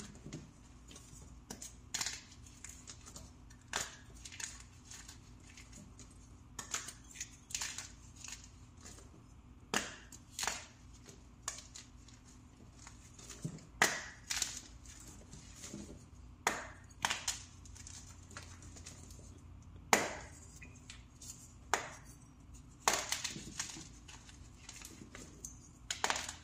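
Fresh blocks of compressed powder crushed by hand, giving sharp, crisp crunches irregularly every one to three seconds.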